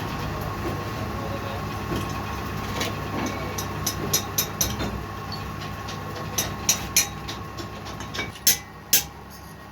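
A machine runs with a steady low hum and drops away near the end. Over it come a string of sharp metallic clicks and knocks, the loudest two near the end.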